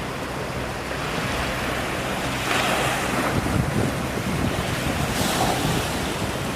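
Wind buffeting the microphone over rushing sea water, with a faint steady low hum underneath. A louder wash of water comes about halfway through.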